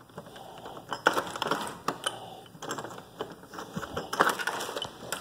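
Door hardware being worked as a back door is unlocked and opened: a run of metallic clicks and rattles, with the sharpest knocks about a second in, near two seconds and just after four seconds.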